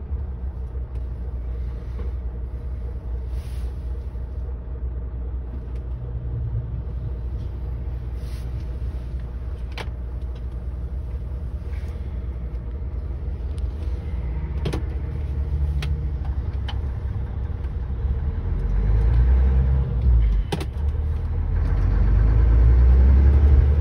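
Truck engine and road rumble heard from inside the cab, a steady low drone with a few sharp clicks and knocks. It grows louder over the last few seconds as the truck pulls away.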